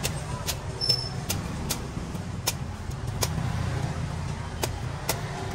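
A large knife chopping and shaving the husk of a young green coconut in quick irregular strokes, a sharp chop about once or twice a second, over a steady low rumble of road traffic.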